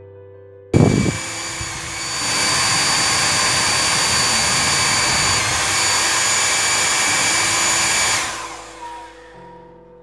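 Philips HP8100 compact hair dryer switched on about a second in: the fan motor blows a steady rush of air with a faint high whine, growing louder about two seconds in. It is switched off near the end and the motor spins down with a falling tone.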